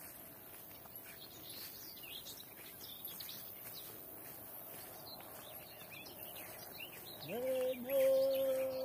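Several songbirds chirping and singing, faint. Near the end a person's voice starts a long held note on one pitch.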